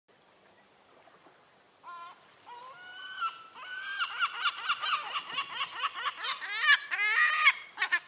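Herring gull calling. A few separate calls about two seconds in lead into a fast series of repeated calls, several a second, which grows loudest near the end.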